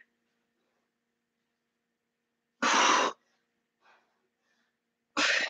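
A woman's short, forceful breaths out while doing push-ups: two exhalations about two and a half seconds apart, with silence between them.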